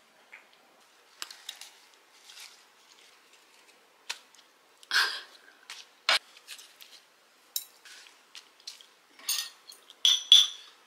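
Metal utensils and ceramic dishes clinking and tapping on a table in short, separate knocks, with brief handling noises. The loudest taps come near the end as a piece of meat is set onto a leaf wrap.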